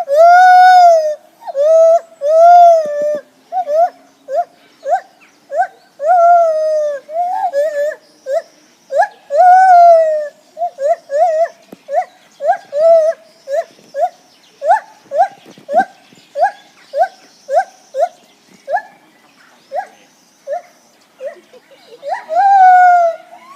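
Lar gibbon calling: three long, swelling hoots, then a long run of short, rising whoops at about two a second, and another long hoot near the end.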